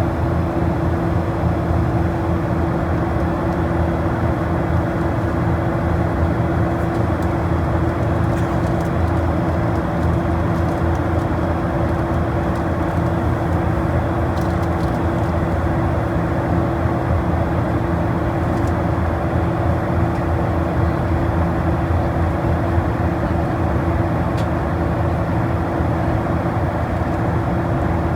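Aircraft engine noise in flight: a steady drone with a constant hum that does not change.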